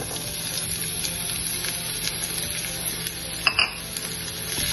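Chopped onions sizzling as they hit hot desi ghee in a frying pan, a steady frying hiss. A brief clink about three and a half seconds in.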